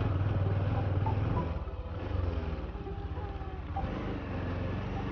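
Motorcycle engine running under way on an off-road trail. The throttle eases off about a second and a half in and picks up again near four seconds.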